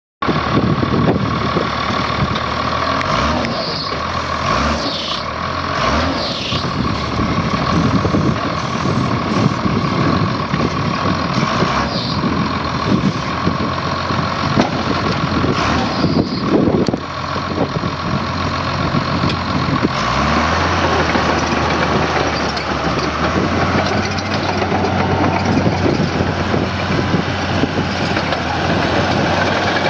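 Case 850G crawler bulldozer's diesel engine running, with a steady high whine over it for the first two-thirds. The engine note shifts and steadies about two-thirds of the way in.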